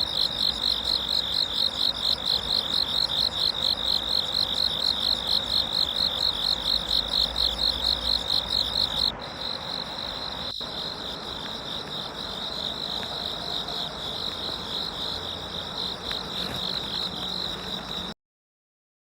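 Insects calling in a high, rhythmic trill of about four pulses a second. About nine seconds in it cuts to a softer, steadier chorus at the same pitch, which stops abruptly near the end.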